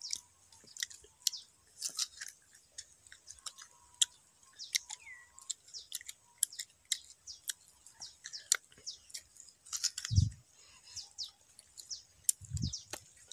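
Close-up biting and chewing of raw green mango: a steady stream of crisp crunches and wet clicks, with a couple of low thumps near the end.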